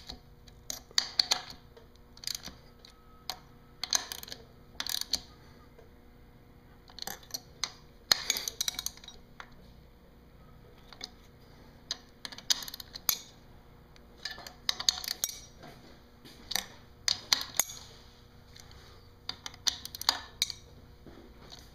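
Hand socket ratchet clicking in short, irregular bursts as the bolts of a Mercruiser sea water pump housing are run down and tightened in a cross pattern.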